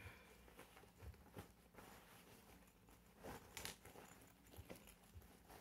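Faint rustling and a few soft scattered clicks of fabric being handled: a small sewn upholstery-fabric zip purse being turned right side out.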